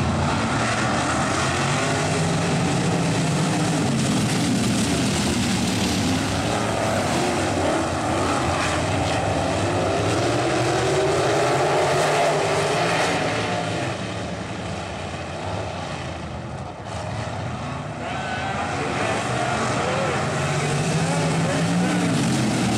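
A pack of dirt-track sprint car engines racing together, a dense engine note whose pitch rises and falls as the cars accelerate and lift. It fades for a few seconds a little past the middle, then swells again as the cars come back around.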